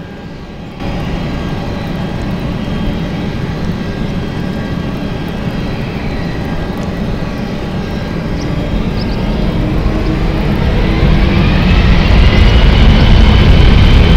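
Boeing 747 freighter's jet engines spooling up: a steady rumble that jumps louder about a second in, then a rising whine as the sound grows much louder over the last few seconds.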